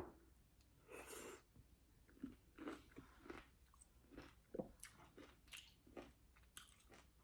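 Faint, irregular chewing and biting on a lime, a dozen or so short mouth sounds close to the microphone.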